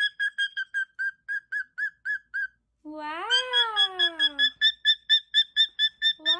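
Pet parrot making a long, meow-like call about three seconds in, rising and then falling in pitch, with a second one starting near the end. Under it runs a steady series of short, high beeps, about four a second, that pause just before the first call and then start again.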